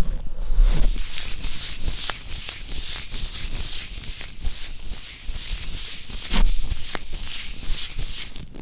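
Fingertips rubbing and pressing close against the microphone while feeling around the ear in an ASMR ear exam. It is a close, scratchy rubbing in uneven strokes, with a few small ticks.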